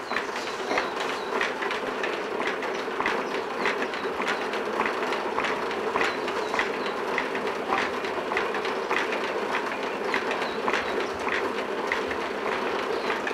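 Hand spinning wheel running as yarn is spun: a steady whirring hum with a regular clacking, about two clicks a second.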